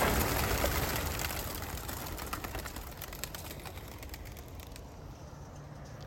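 A flock of about 150 racing pigeons taking off together as they are released from a transport trailer: a dense rush of flapping wings with many sharp wing claps, loudest at first and fading as the flock flies away.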